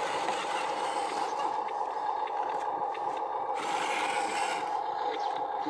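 Huina radio-controlled toy dump truck driving over sand: its electric drive motor and gearbox give a steady whine.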